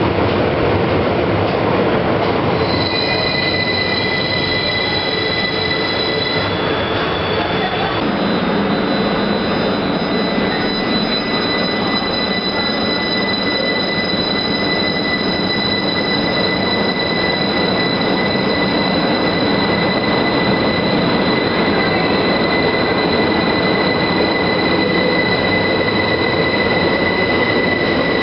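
Steady running noise from a moving public-transport vehicle ridden from inside, a dense rumble with a high steady whine held over it.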